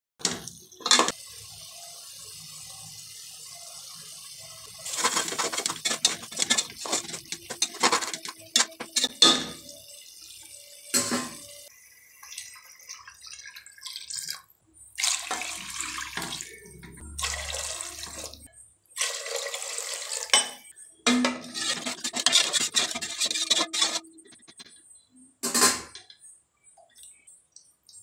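A metal spoon scraping and stirring tomato masala in a metal pot, with water poured in and splashing as it is stirred. The sound comes in irregular bursts of scraping and sloshing, with a few sharp clinks of the spoon against the pot.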